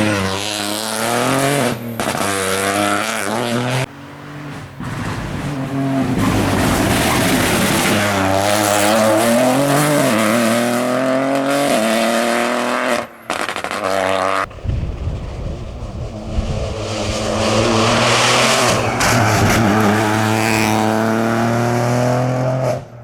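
Rally car engine revving hard as the car passes at speed, its pitch climbing and dropping repeatedly with gear changes and lifts. The sound breaks off abruptly several times between passes.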